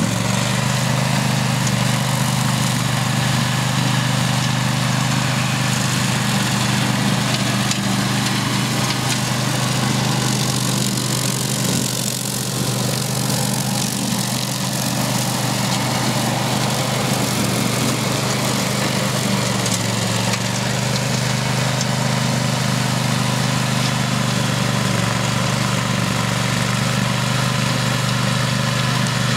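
Grillo Climber ride-on brush mower running steadily at working speed while cutting tall grass, its engine giving a constant drone with a level hum.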